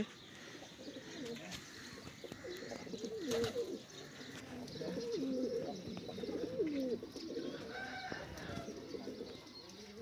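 Domestic pigeons cooing: a few low coos, each one gliding up and down in pitch.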